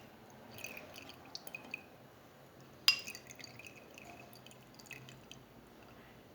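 Liquid dripping from grated white turnip soaked in honey as it is strained and squeezed, with light taps and one sharp click about three seconds in.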